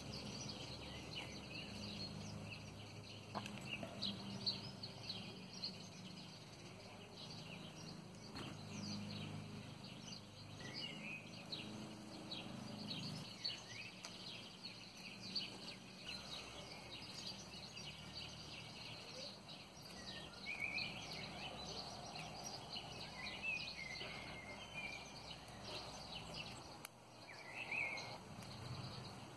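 Metal rings of a riveted mail patch clinking lightly as they are handled and worked into the weave, with birds chirping in the background.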